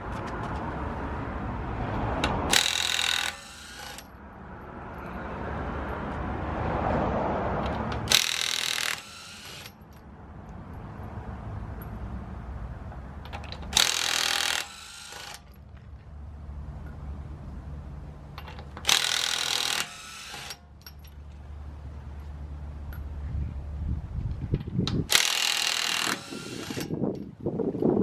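Handheld power tool with a socket spinning off the wheel's stock lug nuts: five short bursts, one per lug nut, about five seconds apart, with handling noise between them.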